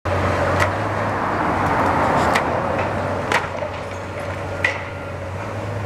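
Hydraulic excavator's engine running steadily as it tears into a building's roof structure, with crumbling debris and four sharp cracks of breaking wood and falling rubble.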